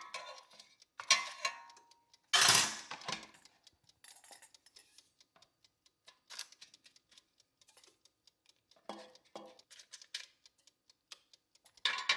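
Metal kitchen tongs clicking and clanking against an air fryer basket as chicken wings are turned over, with one ringing clank and then a louder clatter about two and a half seconds in. After that come scattered light taps and dabs as sauce is brushed onto the wings with a basting brush.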